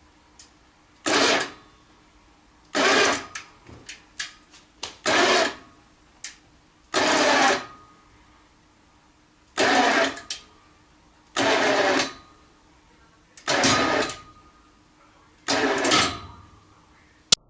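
Hand winch worked in repeated strokes, nine short mechanical bursts about every one and a half to two seconds with small clicks between, tensioning the line to load a 3 mm stainless steel bolt hanger. A single sharp click near the end.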